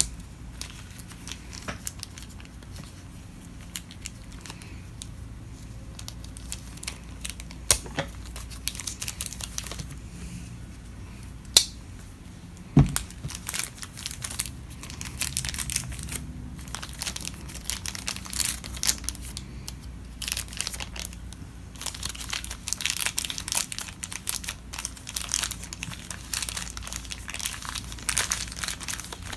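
Crinkling and tearing of a small taped bag being pulled open by hand: bouts of rustling with scattered sharp clicks, busier in the second half, and one dull thump about halfway through.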